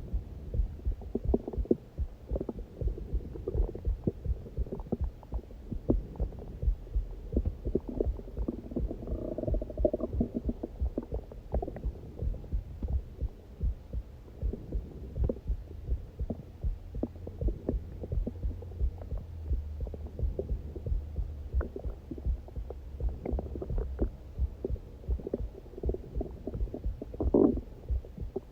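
A human heartbeat picked up close, a steady run of low thumps, with a hungry stomach growling over it. There is a short gurgle about a third of the way in and a louder growl near the end.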